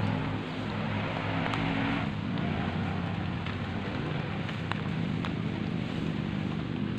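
Steady rain hiss over a low steady rumble, with a few sharp clicks scattered through.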